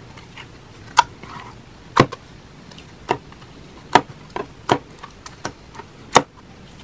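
Clear glue slime being squeezed and folded by hand in a plastic tub, giving sharp sticky clicks and pops, the louder ones about once a second with softer ones between.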